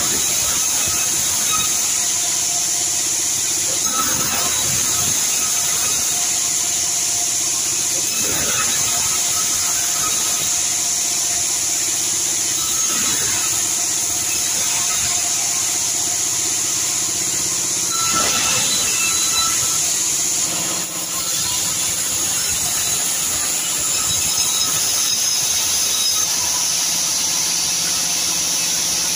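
Sawmill band saw running continuously as red sengon timber is fed through it and ripped lengthwise into boards: a steady high hiss with a constant whine over it.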